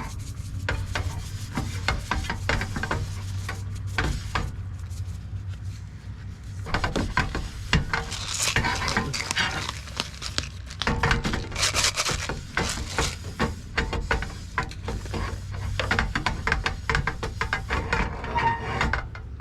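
Hands rubbing oil into a raw trout on a paper napkin: irregular rubbing, rustling and scraping, with louder rasping stretches about halfway through.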